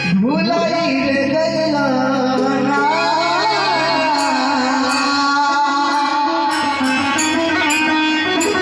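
A man singing live into a microphone over an electronic keyboard, heard through a PA system. The keyboard holds sustained low notes, and a light cymbal-like beat comes in about halfway through.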